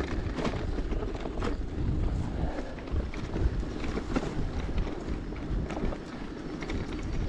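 Bicycle ridden over a rough dirt road: a steady rumble of tyres and wind on the microphone, broken by short rattles and knocks from the bike.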